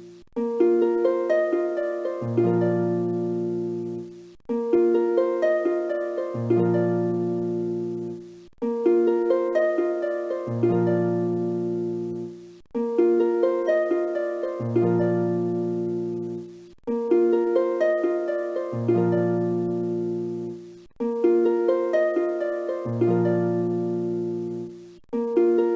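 Background music: a short phrase of plucked notes looping about every two seconds, with low bass notes under every other repeat.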